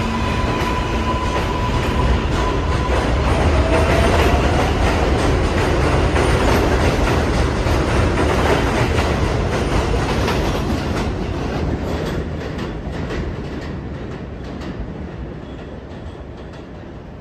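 New York City subway train running on the track, a steady rumble with repeated clicks and clatter of the wheels over rail joints and a short rising whine in the first few seconds. The sound fades steadily over the last six seconds or so.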